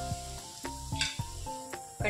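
Semolina sizzling as it fries in hot oil and ghee in a kadai, an even frying hiss. Soft background music with held notes plays over it.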